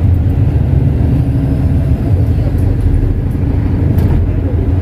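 Ferry's engine running with a steady, loud low rumble.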